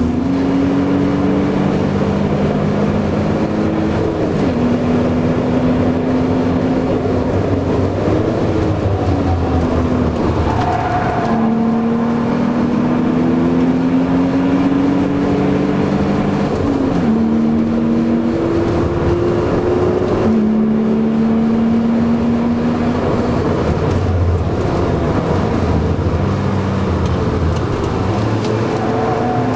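BMW Z3 2.8's straight-six engine pulling hard through the gears, heard from inside the cabin: its pitch climbs steadily and drops back at each of several gear changes, over continuous road and wind noise.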